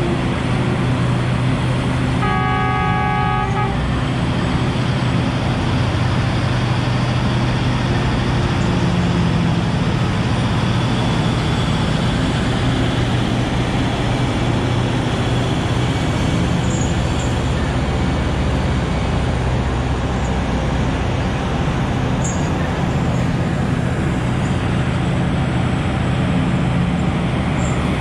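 Diesel engines of a Liebherr R9350 mining excavator and a Komatsu 730E haul truck running in a steady low drone. About two seconds in, a horn sounds once, held for about a second and a half.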